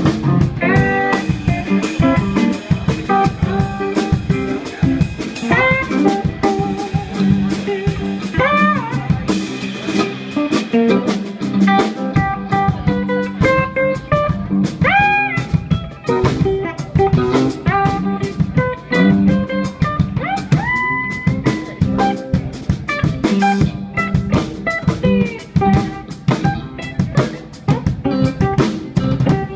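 Live band playing an instrumental: electric guitar lead with notes bent upward in pitch, over a drum kit.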